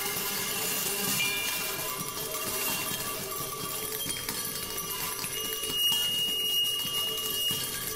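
Small cymbal and a bundle of small brass bells held against a spinning percussion table, giving a dense metallic jingling and rattling over a bed of sustained ringing tones. A clear high ringing tone enters about six seconds in and holds for about two seconds.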